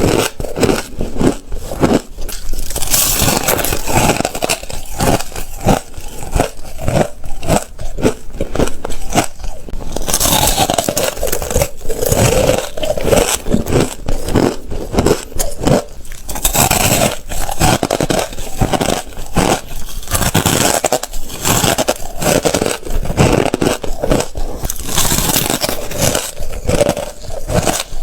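Ice being bitten and chewed: loud, rapid crunching and cracking, with stretches of grinding crunches in between.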